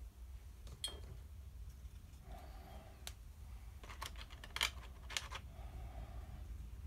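Light clicks and taps of paintbrushes being handled against a plastic palette tray and desk clutter, with a quick run of clicks about four to five seconds in, over a low steady hum.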